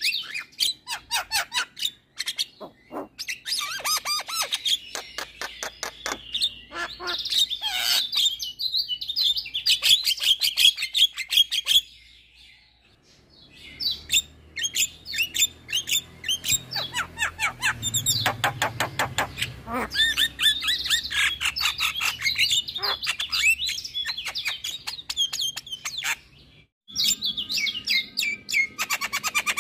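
Javan myna singing a long, rapid chattering song of quick clicking notes and whistles, with a pause about halfway through and a brief break near the end.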